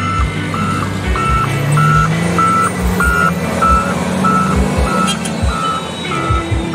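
Heavy construction machine's back-up alarm beeping at a steady pace, a little under two beeps a second, over its diesel engine, whose pitch rises about a second in and then holds. Irregular low thumps run underneath.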